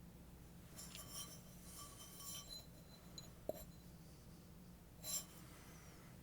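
Faint clinks and rattles of small metal parts and tools handled during disassembly of a pump motor: a cluster in the first couple of seconds, a short tick midway, and one louder clink near the end, over a low steady hum.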